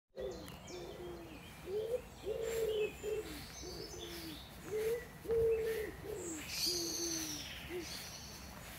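A pigeon cooing in repeated low phrases of about five notes, one note in each phrase drawn out longer than the rest, with small birds chirping faintly and high above it.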